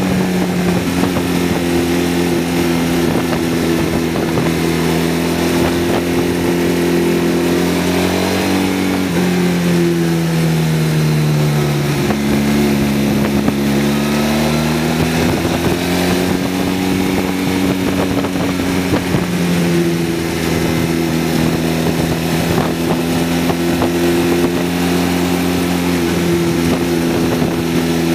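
Motorcycle engine running steadily while riding, picked up by a camera mounted on the bike behind the windshield, over a haze of wind and road noise. The engine note drops and climbs back up about midway, and shifts in pitch in steps a few times.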